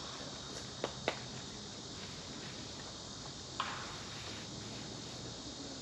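Steady chirring of insects, with two sharp clicks about a second in and a third, slightly ringing click about two-thirds of the way through.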